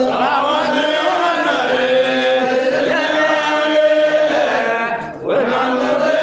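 Sufi devotional chanting of an Arabic qasida in praise of the Prophet, with long held, wavering notes and a short break for breath about five seconds in.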